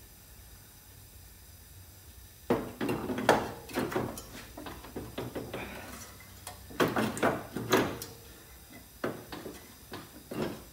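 Flywheel of a Briggs & Stratton Intek V-twin being lowered onto the crankshaft over the stator, clanking and knocking against metal as its magnets grab it. The knocks come in three clusters, starting a couple of seconds in.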